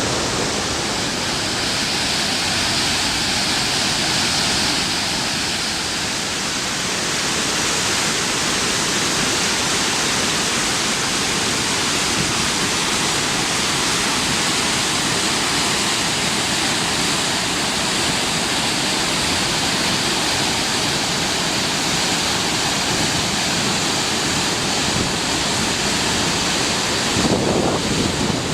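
Loud, steady rush of fast-flowing floodwater. Near the end the noise turns choppier and uneven.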